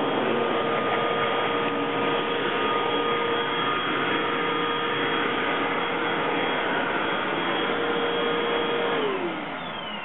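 Hoover WindTunnel T-Series bagged upright vacuum cleaner running, a steady motor whine over a rush of air. About nine seconds in, the whine slides down in pitch and the sound drops as the motor spins down.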